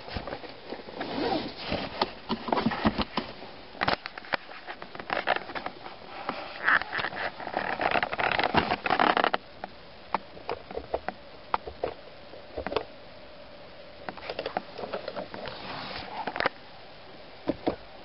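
Irregular rustling and clicks from hands working a car's dashboard controls and handling the camera in the cabin. The sounds come in a busy stretch that stops abruptly about nine seconds in, then as scattered clicks.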